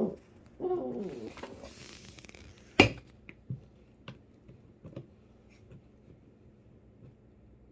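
A puppy gives a short whining yowl about half a second in. Then come a sharp click near three seconds in and a scatter of faint ticks and clicks as yellow Labrador puppies chew at the underside and legs of an upholstered chair.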